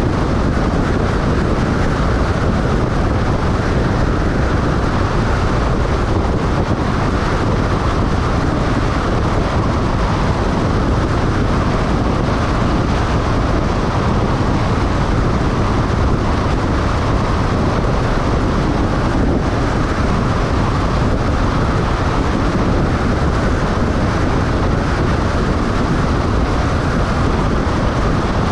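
Steady wind and road noise from a moving vehicle, an even rush that stays at the same level throughout.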